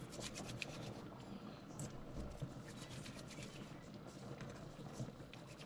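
Hands rolling soft flour-and-cornmeal dough between the palms to shape spinner dumplings: a faint, irregular rubbing with light scratchy ticks, over a steady low background noise.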